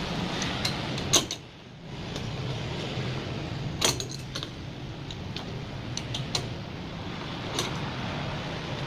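Sharp clicks and clinks of dryer parts and tools being handled, the loudest about a second in and about four seconds in, over a steady low hum.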